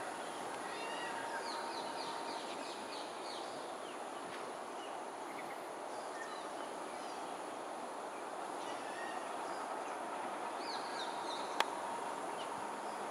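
Birds giving runs of short, quick high calls, about a second in and again near the end, over steady outdoor background noise. A single sharp click comes near the end.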